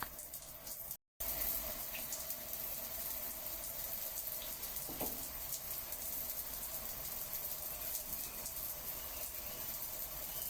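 Water running steadily in an even rush, with the sound cutting out completely for a moment about a second in.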